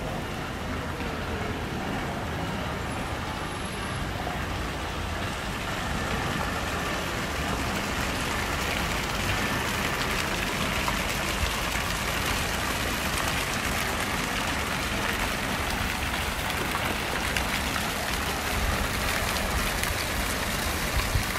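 Water from a tiered stone fountain splashing into its basin, a steady hiss that grows louder about six seconds in, over a low city rumble.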